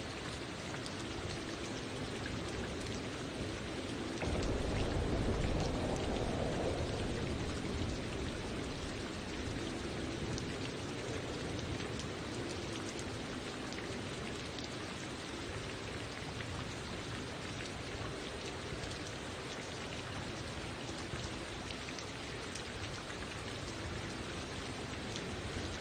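Steady rain falling, with scattered drop ticks. A low rumble swells about four seconds in and fades by about eight seconds.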